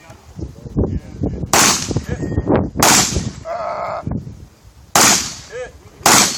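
Four shotgun shots, irregularly spaced a second or two apart, with lighter knocks between them and a brief ringing tone after the second shot.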